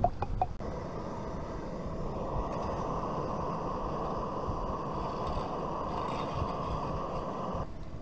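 Cooking oil glugging from a bottle into a pot, then, about half a second in, the steady hiss of a portable gas-canister stove burner running under the pot, which stops abruptly near the end.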